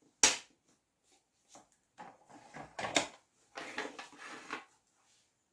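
Small metal leaf-veining mold handled on a wooden tabletop: a sharp click just after the start, then scattered clicks and rubbing for a couple of seconds near the middle and later.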